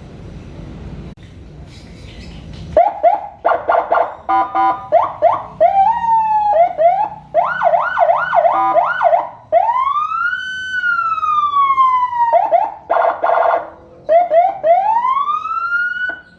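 Senken CJB100BD electronic siren sounding through a Senken YD100i speaker, cycling through its tones: short rising chirps, brief steady blasts, a fast repeated yelp and a long rise-and-fall wail. It starts about three seconds in, after a low rumble, and the last wail is cut off as it rises.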